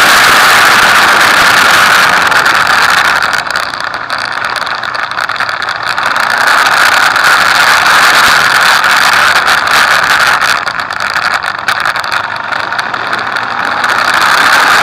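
Motorcycle riding at speed on a track, heard from a camera mounted on the bike: a loud rush of wind noise with the engine under it. It eases off twice for a few seconds and builds back up.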